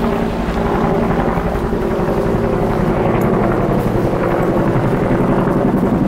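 Dog stroller's wheels rolling over a rough dirt trail: a steady, loud rumble with a fast rattle.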